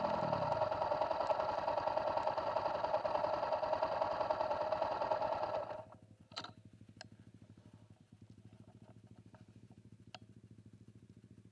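Dirt-bike engine idling steadily close by, then shut off abruptly about six seconds in. After that a much fainter low engine idle carries on, with a few light clicks.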